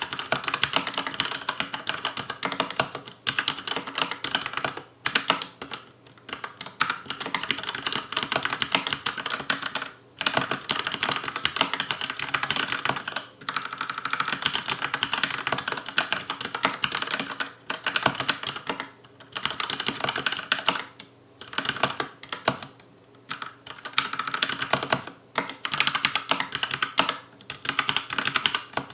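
Fast, continuous touch typing on a Logicool K835 TKL mechanical keyboard with TTC linear red switches, a dense clatter of keystrokes broken by several brief pauses.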